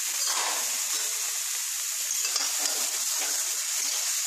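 Mixed vegetables sizzling steadily as they fry in mustard oil in a kadai, with a spatula stirring and scraping through them.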